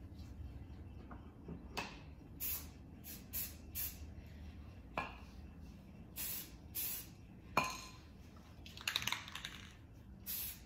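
Aerosol can of Rust-Oleum camouflage spray paint hissing in short spurts, about half a dozen quick bursts in two groups, with a few sharp clicks. Near the end there is a brief metallic rattle.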